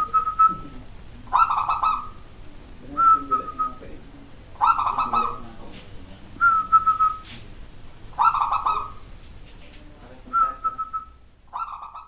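Caged zebra dove (perkutut) singing its cooing song, a series of separate pitched phrases repeated about every one and a half to two seconds. Fuller, dense phrases alternate with thinner notes that end in a short trill.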